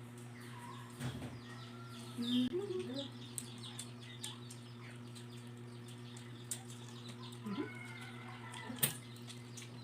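Soft eating sounds, small clicks and smacks from someone chewing chicken feet, over a steady electrical hum. Short bird chirps can be heard in the background, and there is a brief murmur about two seconds in and a sharp click near the end.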